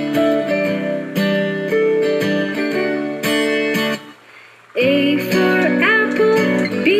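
Children's song backing music led by a strummed acoustic guitar. The music drops out briefly about four seconds in, then comes back with sliding melodic notes.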